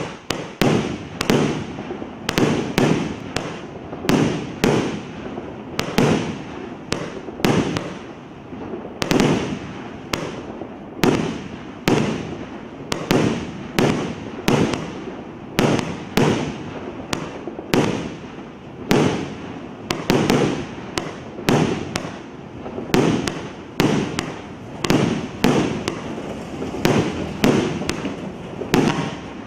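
Multi-shot consumer fireworks cake firing a long, steady run of aerial shots, roughly two a second, each a sharp bang with a short rumbling tail.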